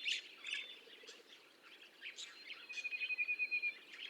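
Budgerigars chirping in short, high calls, with a fast, even trill lasting about a second near the end.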